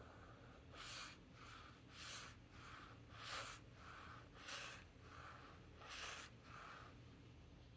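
A paintbrush laying ink onto a swatch card in soft back-and-forth strokes: about five louder swishes roughly every second and a quarter, with fainter ones between.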